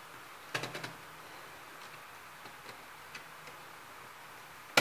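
A handheld screwdriver turns a longer screw into a laptop's plastic case at the hinge mount. There is a cluster of light clicks about half a second in, scattered faint ticks, and one sharp click near the end.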